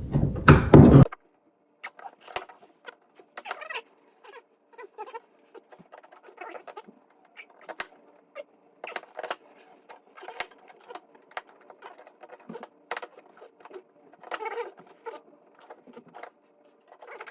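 Hand tools working a stubborn tailgate-handle bolt on a Chevy C10: faint, irregular small metallic clicks and scrapes, with a short louder noise right at the start.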